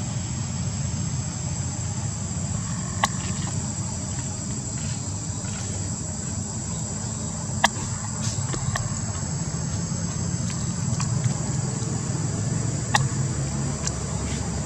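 Steady high-pitched insect buzzing over a low, even rumble, with a few sharp clicks: one about three seconds in, two close together near eight to nine seconds, and one near thirteen seconds.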